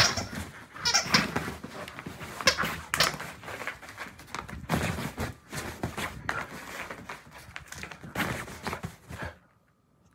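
Dog making excited vocal noises while playing and scrambling on a bed, mixed with rustling and thumps of bedding. It stops abruptly shortly before the end.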